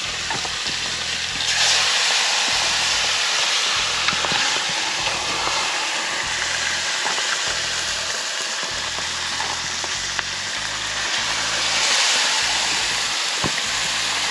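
Chicken pieces frying in hot oil in a wide pan, a steady sizzle with scattered small pops. The sizzle swells about a second and a half in and again near the end.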